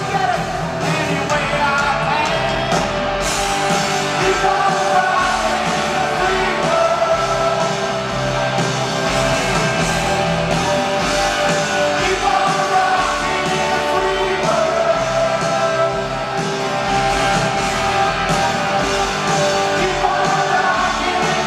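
A live rock band plays with electric guitars, bass and drums, and a male voice sings over it. The sound is heard from the audience in a large arena.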